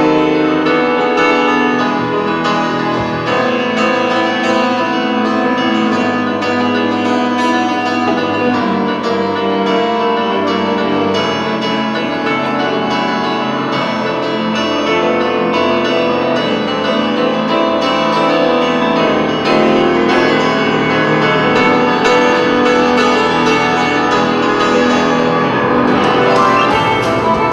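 Live ensemble music, with the grand piano to the fore over accordion, bass guitar and drums; the violin plays near the end.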